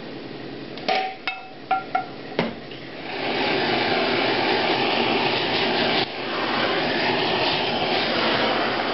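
A kitchen blowtorch running with a steady hiss of flame from about three seconds in, after a few sharp clicks, as it warms the sauced food on the plate.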